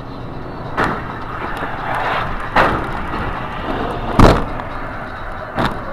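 Steady road noise inside a car, broken by four heavy thumps spaced roughly a second and a half apart, the loudest about four seconds in: the car being struck in a collision.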